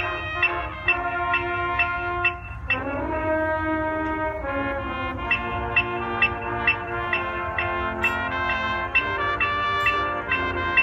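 Marching band brass playing held chords that change every second or two, over a metronome clicking a steady beat a little over twice a second.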